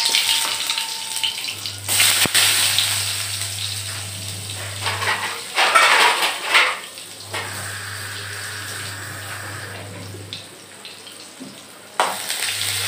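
Hot oil with fenugreek seeds sizzling in a kadhai as sliced onions go in, with a louder burst of sizzling about halfway through that then settles. Near the end a spoon starts stirring the onions in the pan.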